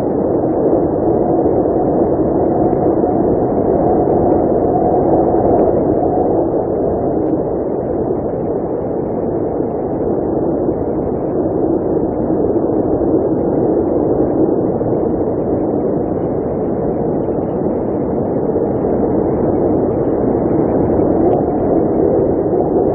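Blizzard wind blowing steadily: an even, muffled rush of noise without gusts or breaks.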